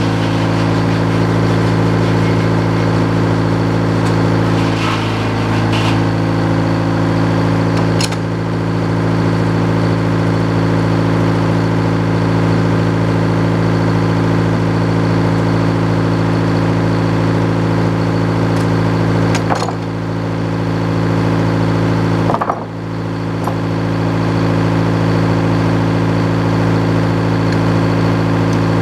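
Sawmill engine running at a steady speed, with a few brief dips in level.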